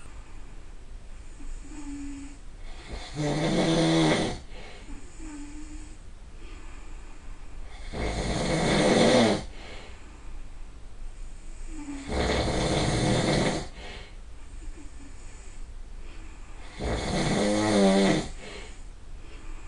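A person snoring loudly: four long snores, one every four to five seconds, each lasting a second or more.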